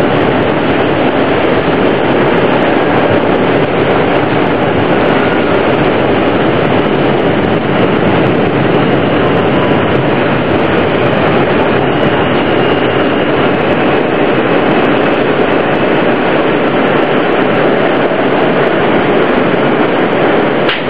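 Steady, loud running noise heard from inside a New York City Subway R160A-2 car: the rumble and rush of the train's wheels and running gear, unbroken throughout.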